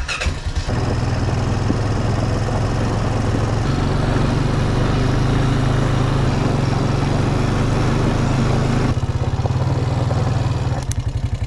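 Honda Foreman 500 ATV's single-cylinder four-stroke engine running steadily under throttle while riding. Near the end the throttle eases off and it drops to a slower, lumpy putter.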